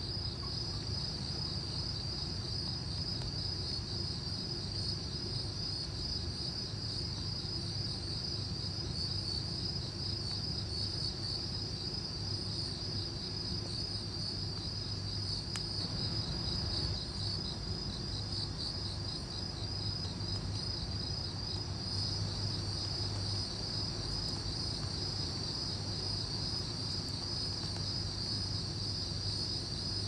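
Crickets chirping at night: a steady, high-pitched chorus of rapid, evenly pulsed chirps, with a low steady hum underneath.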